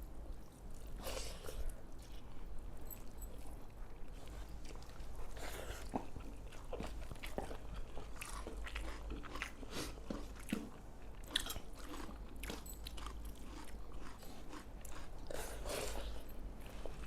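People eating rice and pepper chicken: chewing and biting, with irregular small clicks and brief crunchy sounds.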